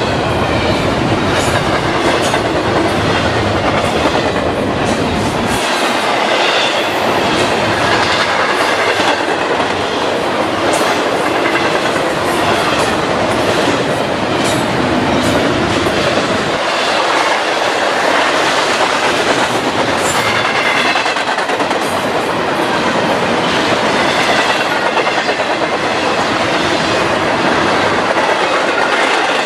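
Norfolk Southern double-stack intermodal freight cars rolling past at close range: a steady loud rumble of steel wheels on rail with clickety-clack over the rail joints. A wavering high squeal from the wheels comes and goes.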